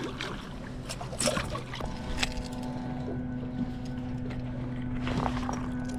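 A bluefish splashing at the side of a boat as it is gripped and lifted out of the water, with a few sharp knocks and splashes in the first two seconds and again near the end. A steady hum from the boat's motor starts about two seconds in.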